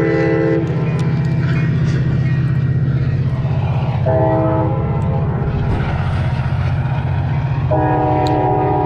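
Train passing close by: the locomotive runs loud and steady underneath, and its air horn sounds a chord of several notes three times, with one blast ending about half a second in, a short blast around four seconds in, and a longer one starting near the end.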